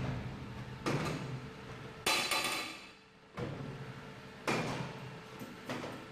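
A loaded rack trolley of cheese moulds being pushed into a stainless-steel drying container: four sharp knocks and clanks, the second followed by about a second of rattling, over a faint steady hum.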